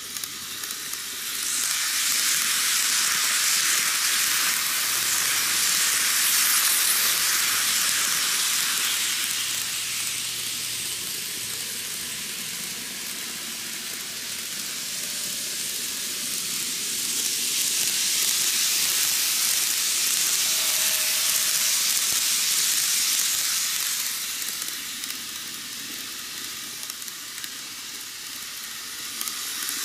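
N-gauge model trains running on cant track, a steady high hiss of wheels on rail and motor whir that swells twice as a train passes near.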